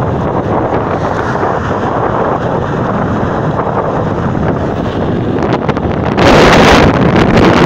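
Wind buffeting a phone's microphone while riding a bicycle fast along an asphalt road, a steady rushing noise. About six seconds in it grows louder and harsher as a stronger gust hits the microphone.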